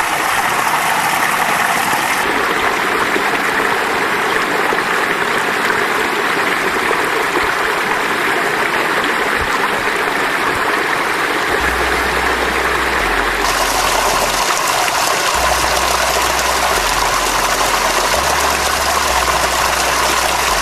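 Steady rush of running water, with sudden shifts in its tone at a couple of points. A low rumble comes and goes in the second half.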